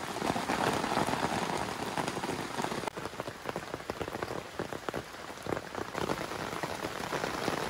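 Steady rain falling on a camping tent, heard from inside: a dense hiss with many separate drops ticking through it.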